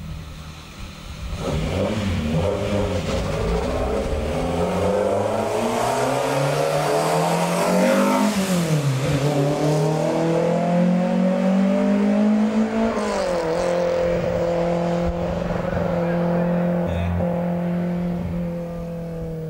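BMW M3 E30 racing car's four-cylinder engine revving hard, its pitch climbing for several seconds, dipping briefly about eight seconds in, then climbing again. About two-thirds of the way through the revs drop suddenly and the engine holds a steady pitch, easing off near the end.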